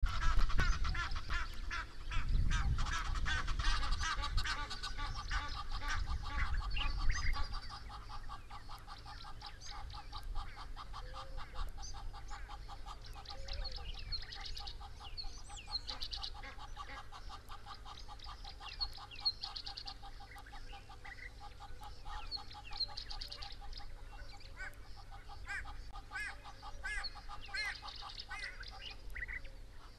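Birds calling at a river: a long run of rapid, evenly repeated honking calls, with smaller birds chirping higher up over them. A low rumble sits under the first several seconds.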